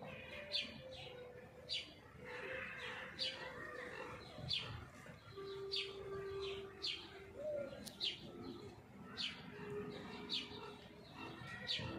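A bird calling repeatedly, short high falling chirps every half second to a second, with a few lower held notes underneath.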